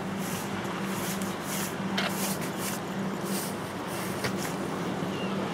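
Steady wind and sea noise with a constant low hum, broken by a few light clicks.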